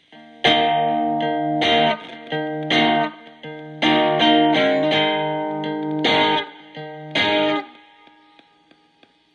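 Electric guitar chords strummed through a breadboarded Distortion+ overdrive circuit, its clipping diodes supplied by a diode substitution box. It is a run of about six loud strums with a few lighter ones between them, and the last chord fades out near the end.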